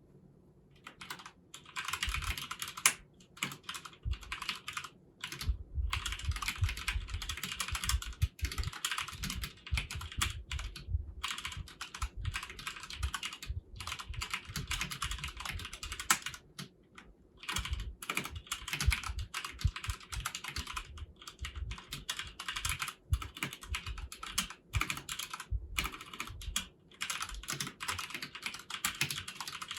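Continuous typing on a Filco Majestouch Convertible 2 mechanical keyboard with stock keycaps and foam dampening added inside. Rapid keystroke clicks begin about a second in and run on with a few short pauses, one just past the middle.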